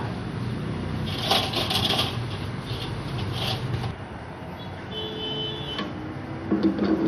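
Metal clinking and clattering of engine main bearing caps being handled on a perforated steel tray. There is a run of clicks about a second in, a few more later and a louder knock near the end, over a low steady hum.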